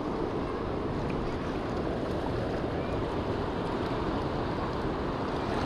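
Steady wash of the sea and surf against shore rocks, with some wind on the microphone.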